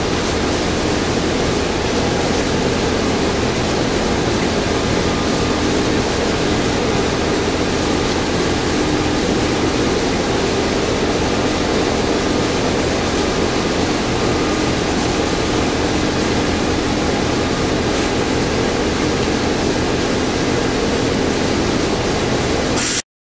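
Steady, loud workshop background noise: an even rush with a low hum under it, unchanging until it cuts off abruptly near the end.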